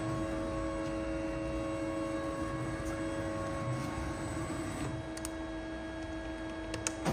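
Doosan Lynx 2100 CNC lathe powered on and standing idle, humming steadily with several fixed whining tones. The hum drops a little about five seconds in, and a few light clicks come near the end.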